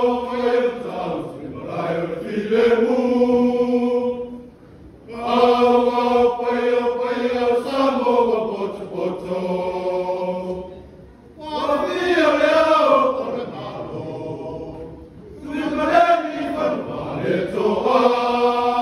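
A Samoan men's choir chanting in long held phrases, four phrases with short breaks between them.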